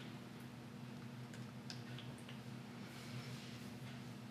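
Quiet room tone: a steady low hum with a few faint, light ticks.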